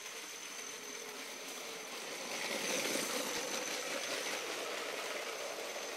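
Lego train's small electric motor running and its plastic wheels rolling over plastic Lego track, growing louder about two to three seconds in as the train comes close, then easing a little.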